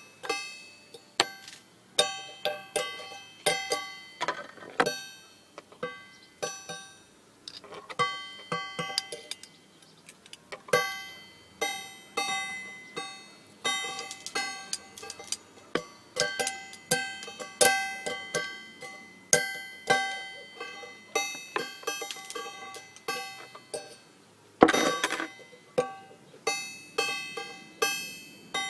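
Instrumental music on a plucked-string instrument: single notes and chords, each sharply plucked and dying away quickly, with one louder, fuller chord near the end.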